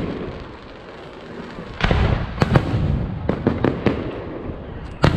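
Aerial firework shells bursting: a heavy boom about two seconds in, followed by a string of sharp bangs and crackles, and another boom near the end.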